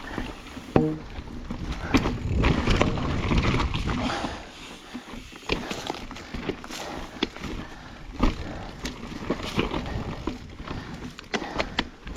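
Mountain bike riding over rough single track: tyre noise on dirt with irregular knocks and rattles from the bike over the ground, and a rider's heavy breathing.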